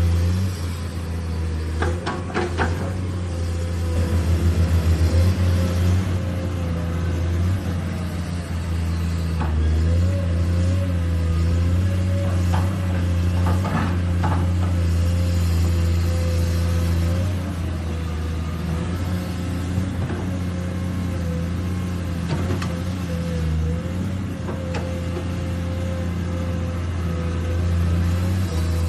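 Remote-control model construction machines running: a steady low motor drone with a thinner whine above it that wavers slightly in pitch. There are a few short clicks or clanks about two seconds in and again around thirteen to fourteen seconds.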